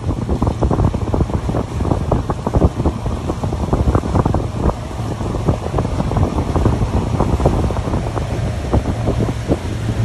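Heavy wind buffeting on the microphone of a motorboat under way, over the steady low drone of its engine and the splash of water.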